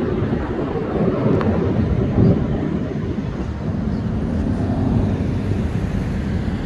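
Jet engine noise from BAE Hawk T1 display jets flying overhead: a steady low rumble, loudest about two seconds in.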